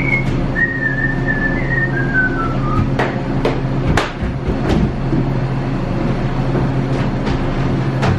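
Someone whistling a short tune that steps downward in pitch, followed by several footsteps knocking on the stairs. A steady low machine hum runs underneath.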